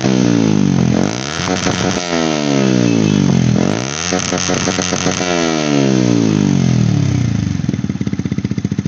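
Yamaha MT-15's single-cylinder engine revved three times through a modified, welded-on silencer with its insert pulled out. Each rev rises quickly and falls back; the third is held for about a second before it settles to idle. The exhaust note is smooth.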